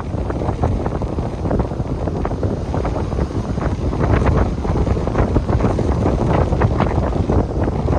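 Strong wind buffeting the microphone in uneven gusts, with the rush of waves breaking on the shore underneath.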